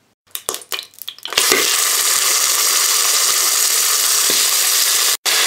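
Soy-marinated lamb pieces sizzling as they are laid into hot vegetable oil in a multicooker bowl on its frying setting at 180 °C. A few light clicks come first, then the sizzle starts abruptly about a second and a half in and runs steadily.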